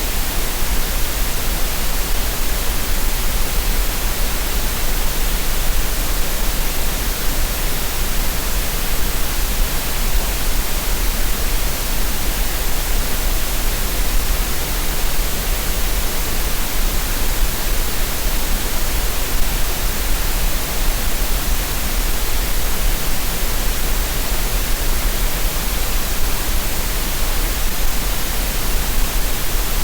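Steady, unchanging synthetic green noise: an even hiss with a strong low rumble underneath, produced for relaxation and tinnitus masking.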